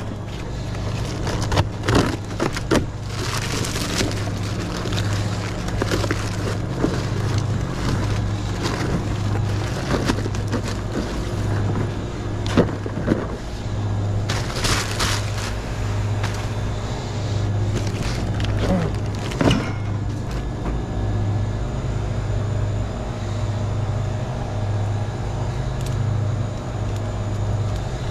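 Shrink-wrapped cases of plastic drink bottles being handled and loaded onto a metal hand cart. The plastic crinkles and the cases knock in short bursts, a few in the first three seconds, again around the middle and once more a few seconds later. A steady low hum runs underneath.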